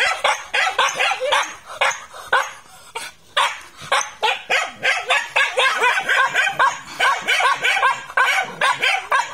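A dog barking fast and without pause, about three barks a second, worked up at a cornered porcupine.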